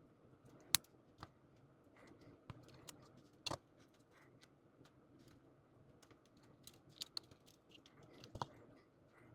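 Small plastic model-kit parts clicking and tapping as they are handled and snapped together: a scattering of faint, sharp clicks at irregular gaps, the loudest a little under a second in.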